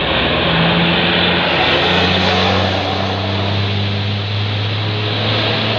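A bus passing close by, its diesel engine running with a low drone over a steady rush of road noise. The engine note drops about two seconds in.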